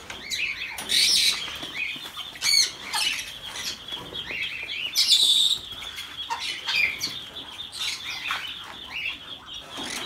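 Many caged birds chattering and calling, with a steady high chatter underneath and louder harsh squawks about a second in and again around the middle.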